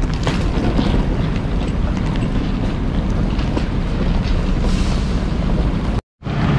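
Steady low rumble and wind noise on the camera microphone: the background of a railway station platform. Near the end the sound drops out for a moment.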